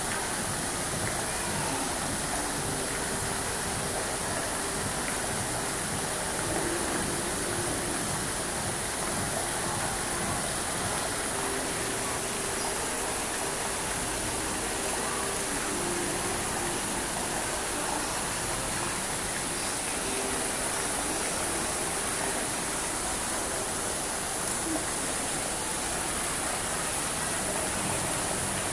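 Jet fountain: rows of vertical jets and arcing streams of water falling into a shallow pool, a steady even rush of splashing water.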